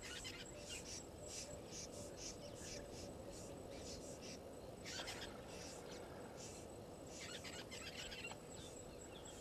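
Bush ambience: a steady high-pitched insect trill under frequent short chirping calls from insects and birds.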